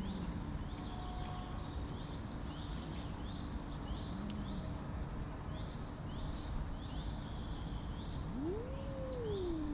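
A cat's drawn-out angry yowl, rising and then falling in pitch, starting near the end, with the falling tail of another yowl at the very start and a brief low murmur about four seconds in. Small birds chirp over and over throughout, over steady outdoor background noise.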